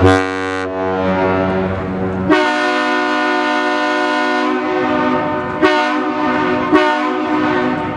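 Ship horn blasts: a deep horn from the Great Lakes freighter Walter J. McCarthy Jr. sounds until about two seconds in, then a higher-pitched horn gives one long blast followed by two short ones, the long-short-short salute exchanged when a ship departs.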